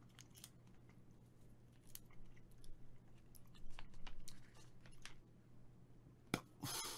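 Wet chewing and small mouth clicks of gum being worked in the mouth to try to blow a bubble, with a sharp smack and a short puff of air near the end as the bubble fails to form. A steady low electrical hum sits underneath.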